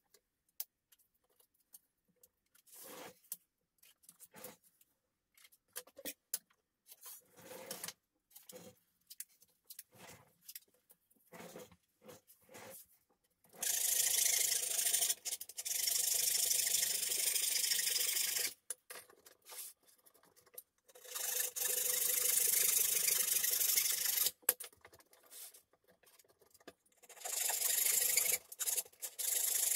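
A small hand saw cutting across a 10 mm beech board, in three long spells of sawing with short breaks between, starting about halfway through. Before that, only a few faint clicks and taps.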